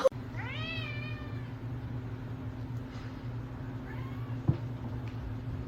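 A cat meows once shortly after the start, a short call that rises and then falls in pitch, over a steady low hum.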